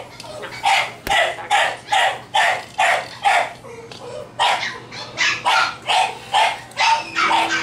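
Cocker spaniel puppy barking in rapid, high yaps, about three a second, each dropping in pitch, with a short break about halfway through.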